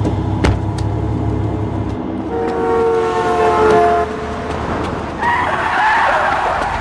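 Road vehicles in traffic: a low engine rumble, then a vehicle passing close and sounding its horn, the tone falling in pitch as it goes by, followed about five seconds in by a brief rush of passing-car and tyre noise.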